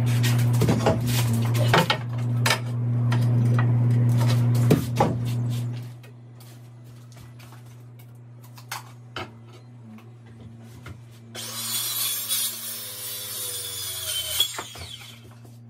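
Knocks and taps on timber over a steady low hum for about the first six seconds. After a quieter stretch, a circular saw cuts through timber for about three seconds near the end.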